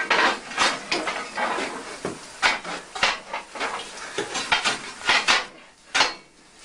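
Irregular metallic clanking and scraping of the fireman's steel firing tools working the coal fire at the firehole of a steam locomotive's firebox, dying away near the end.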